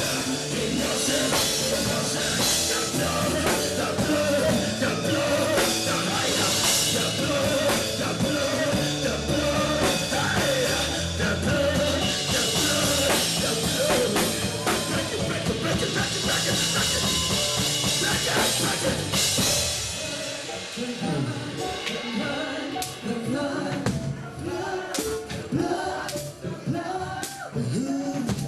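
Live gospel worship music: a full band with drums and cymbals under singing. About two-thirds of the way through, the band drops away, leaving voices singing over light percussion.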